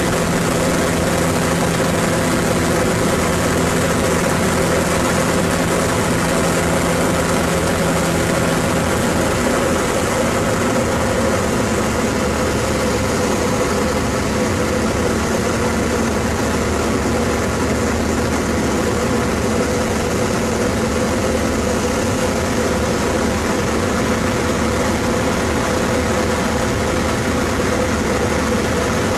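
Pitts Special biplane's piston engine and propeller droning steadily in cruise, heard from the cockpit. The engine note shifts slightly about nine seconds in.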